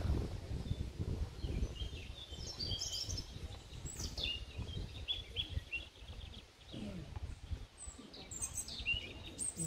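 Songbirds chirping and singing in short repeated phrases, over a steady low rumble.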